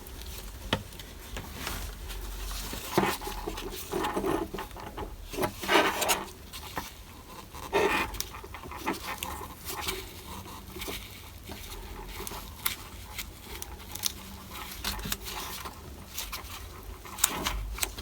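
Irregular scraping, clicking and peeling noises as sticky tar-like sealant is picked off the plastic housing of a hatch release button, with a cluster of louder scrapes a few seconds in.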